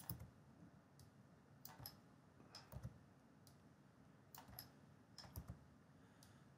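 Faint clicks of a computer mouse and keyboard, several of them in quick pairs scattered over near silence.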